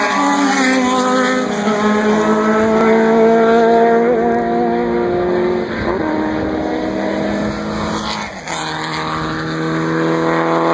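Race car engine running hard at high revs, its note dropping in steps about three times as it shifts up through the gears.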